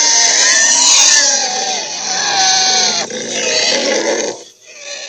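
Giant gorilla roar sound effect: a loud, harsh, growling roar whose pitch wavers up and down, dying away about four and a half seconds in with a short, weaker trailing growl.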